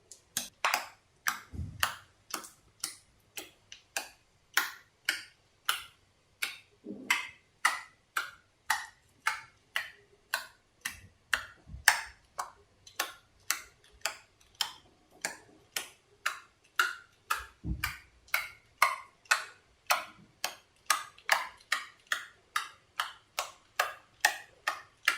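Slime made from bar soap being squeezed and poked, giving sharp clicks and pops about twice a second.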